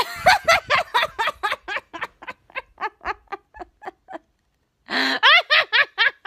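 A young woman laughing hard: a quick run of high-pitched laughs, about four a second, that trail off. After a short pause for breath she breaks into a loud, high squeal of laughter followed by more quick laughs.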